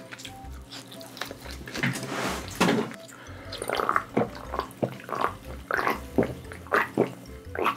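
Repeated gulps of cola swallowed from an aluminium can, about two to three a second, after a short hiss about two seconds in.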